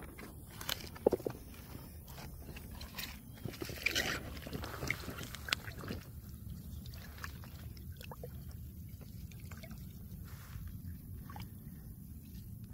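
Pond water sloshing and splashing as a largemouth bass is lowered into floating water lettuce and held in the water to revive it, loudest about four seconds in, with scattered sharp handling clicks and a low steady rumble underneath.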